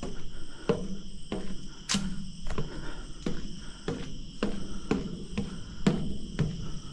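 Footsteps climbing the stairs of a watch tower, a little under two steps a second, over a steady high drone of insects.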